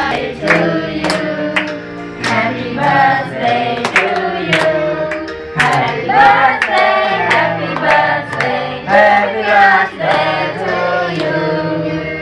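Singing with music, and hands clapping along in time.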